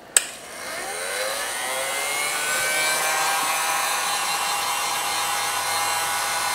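Electric heat gun switched on with a click just after the start; its fan motor spins up with a rising whine over the first couple of seconds, then runs steadily with a rush of air.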